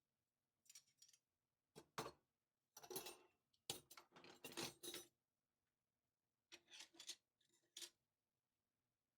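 Cutlery and kitchen utensils being handled and set into a drawer: short clinks and scrapes in several bursts, busiest from about three to five seconds in.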